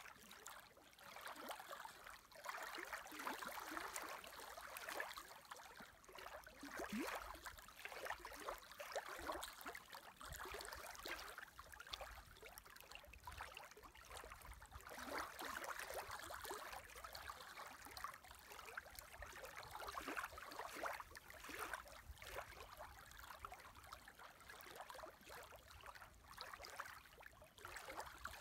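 Small wind-driven waves lapping and splashing at the water's edge: a soft, uneven wash of little slaps and trickles, with a faint low rumble underneath.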